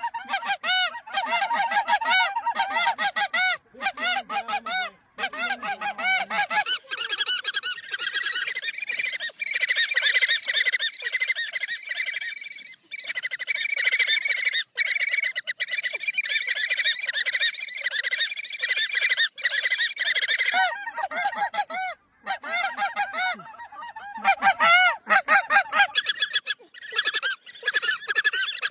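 A flock of waterfowl honking: many loud calls overlapping in quick succession, with a few brief gaps.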